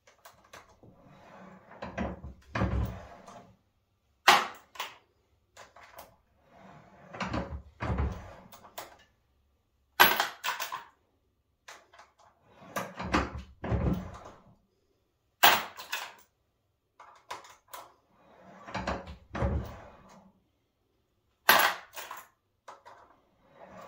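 Hand-lever turret reloading press cycling brass cartridge cases through its dies: a rumbling, scraping stroke of the handle and ram about every five and a half seconds, with a single sharp clack between strokes as a case is handled.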